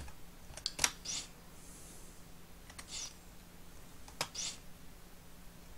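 Computer keyboard keys tapped a few times, short sharp clicks in three small groups about a second or two apart.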